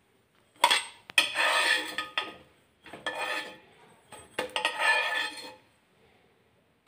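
A steel spatula scrapes and clinks against a non-stick tawa as cooked bhakri rounds are lifted off the griddle onto a tray, in four bursts, the longest about a second.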